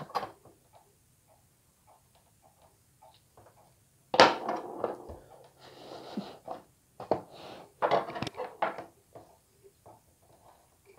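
Black marker pen on a steel frame plate: a sharp click as it is uncapped about four seconds in, then scratchy rubbing as a badly scribed line is coloured in for re-marking, and a few more clicks as the pen is capped and put down and the steel dividers are picked up.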